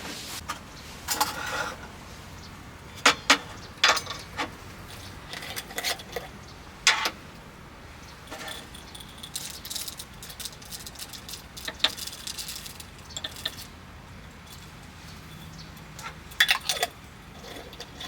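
Irregular clinks and clicks of small hard objects being handled, some in quick clusters.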